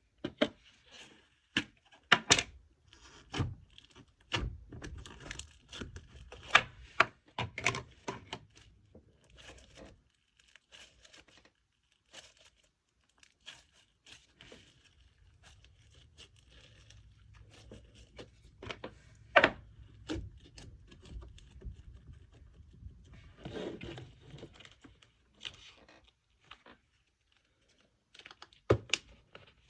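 Slime containers and their packaging being handled and opened: scattered clicks and thunks with bits of crinkling and tearing, busiest in the first ten seconds and sparser after.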